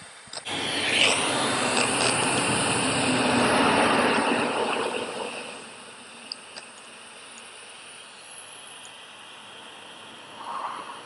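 A vehicle passing by: its road noise swells over the first few seconds and fades away by about halfway through, leaving a quieter steady hiss.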